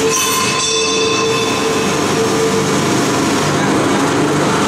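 Pulp egg tray forming machine running with a loud, steady mechanical noise and hum. In the first second a short high-pitched hiss with squealing tones rises over it and fades, and the hum stops about halfway through.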